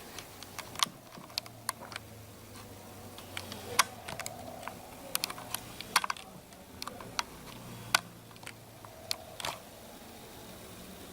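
A series of light, irregular clicks and taps, a few of them louder with a short ring.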